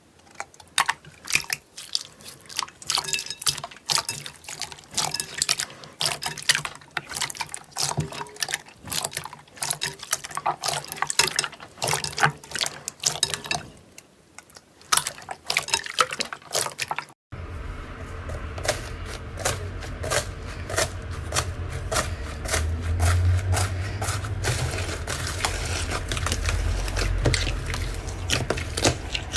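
Slime being squeezed and worked by hand, giving irregular sticky, wet clicks and pops. About 17 seconds in it cuts to another clip with denser crackling over a low rumble.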